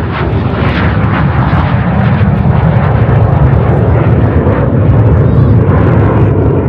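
Kawasaki T-4 jet trainer's twin turbofan engines in a low flyby. It is a loud, continuous jet rumble with a sweeping hiss above it, swelling toward about five seconds in.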